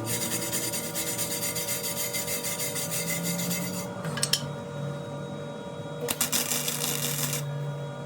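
Steady rasping, crackling noise of metalwork on a rusty steel wheel rim, stopping about four seconds in and starting again about two seconds later.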